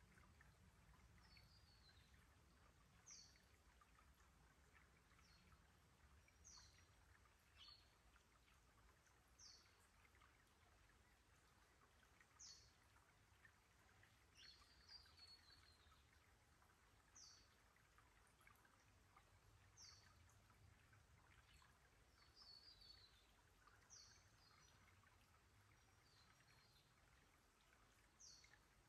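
Very faint trickle of a shallow rocky creek. Over it, birds give short, high, falling chirps every two to three seconds.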